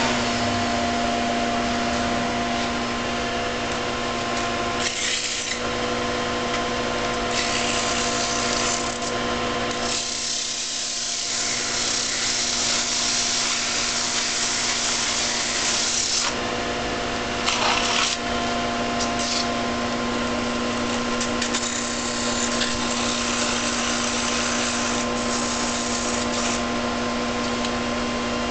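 Wood lathe motor running with a steady hum while hand-held sandpaper rasps against the spinning wooden baseball bat. The hiss comes and goes in stretches, the longest lasting several seconds in the middle. At the very start an electric sander spins down.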